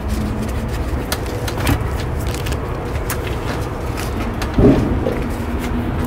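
Steady low rumble of an idling semi-truck diesel engine, with scattered clicks and one louder thud about four and a half seconds in as the cab door is swung shut.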